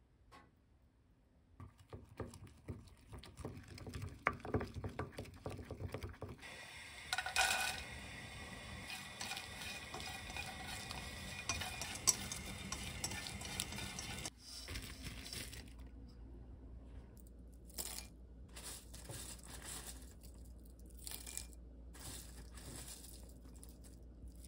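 Kitchen cooking sounds: soft clicks and taps of glass and utensils, then dried shrimp stirred and rattled with wooden chopsticks in a pan as they are dry-toasted, a denser patch of clicking and light hiss that gives way to a quieter steady hum with occasional taps.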